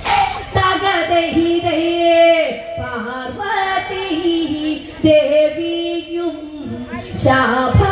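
Women singing a Malayalam Onamkali (therali pattu) song, drawing out long held, slightly wavering notes.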